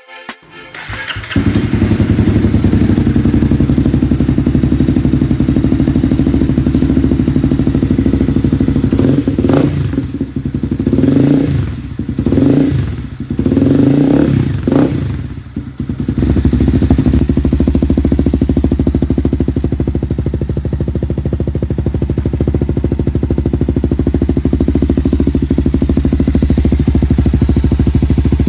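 Honda CB300R's single-cylinder engine running through an NJT Racing full-system aftermarket exhaust: idling steadily, then revved up and down several times in quick blips, then settling back to a steady idle.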